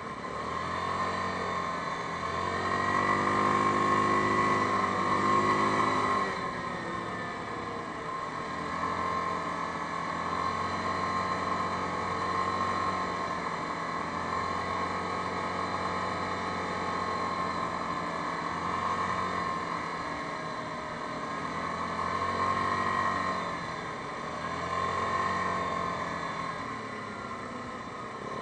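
Yamaha Grizzly 550 ATV's single-cylinder four-stroke engine running under way, rising in pitch and loudness as it accelerates twice, with a steadier cruise in between.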